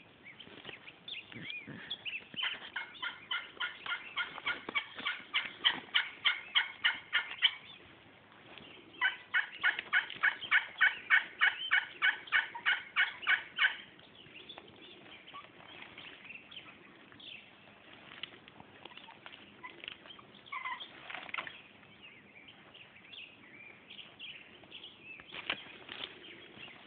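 Turkey call working a long series of yelps, about four a second, in two runs of roughly five seconds each; the first run grows louder.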